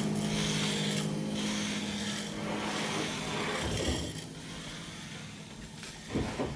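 Rubbing and rasping on wood in repeated strokes, over a steady machine hum that fades away midway; a knock near the end.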